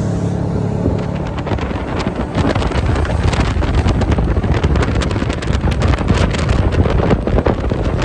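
Wind buffeting the microphone on a speeding jet boat, over the noise of its engine and rushing water. The crackling gusts get rougher from about two seconds in.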